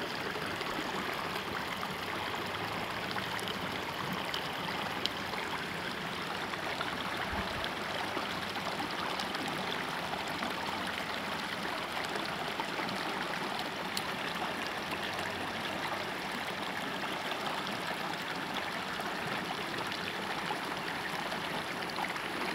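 River water flowing steadily, an even, unbroken rush of current.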